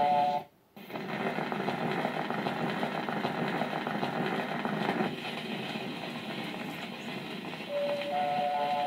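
Surface noise of a shellac 78 rpm record under a 3 mil stylus: steady crackle and hiss as the needle runs in the lead-in groove, starting about a second in when the needle touches down. Near the end the early-1930s jazz dance-band recording begins over the crackle.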